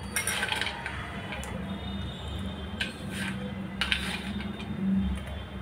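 Kitchen utensils clattering against metal cookware in three short bursts: one just after the start, one about three seconds in and one about four seconds in. A steady low hum runs underneath.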